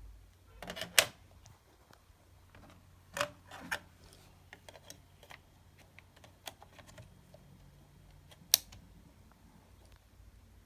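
Scattered clicks and light plastic knocks from handling a RAM memory module as it is pushed into the memory slot of a running computer. Two sharp clicks stand out, one about a second in and one near the end.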